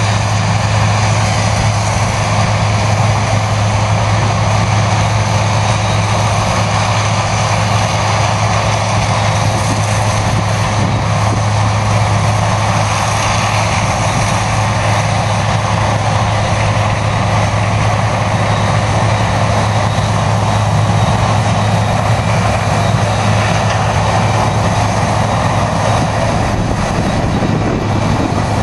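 Large farm machinery running steadily: a constant, loud, low engine drone that holds its pitch throughout.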